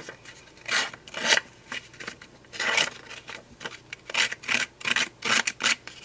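A Ranger Paper Distressor tool scraped along the torn edge of black cardstock, fraying it. It makes a quick, uneven series of short scraping strokes, about two a second.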